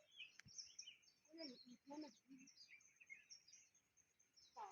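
Faint outdoor quiet with small birds chirping over and over, and brief faint distant talk about a second and a half in.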